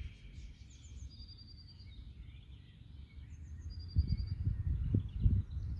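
Birds singing outdoors, repeating short runs of high chirping notes several times. Under them is a low wind rumble on the microphone that gusts louder about four seconds in and is the loudest sound.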